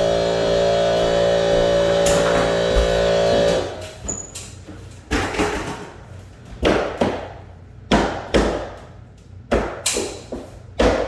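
Background music with plucked strings for the first few seconds, then a nail gun firing about seven times, sharp shots a second or so apart with some in quick pairs, driving 3-inch nails through crown molding into the wall.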